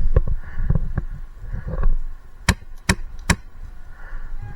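Dull low thuds of movement, then three sharp cracks of an airsoft gun firing about 0.4 s apart, past the middle.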